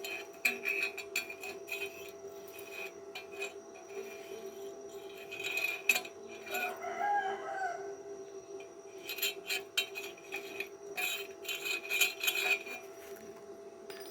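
MIG welding arc crackling in short bursts, stopping and starting several times as a wide gap in iron is filled, over a steady electrical hum. A rooster crows once in the middle.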